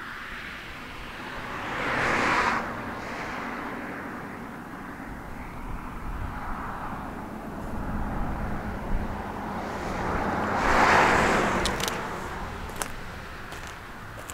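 Cars passing on a road close by: one goes by about two seconds in, and a louder one swells up and fades away near the end, its tyre and engine noise rising and falling over a few seconds.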